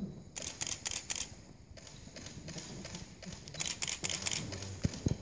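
Camera shutters clicking in rapid bursts: a run of several clicks shortly after the start and another about two-thirds of the way through. A soft low thump comes near the end.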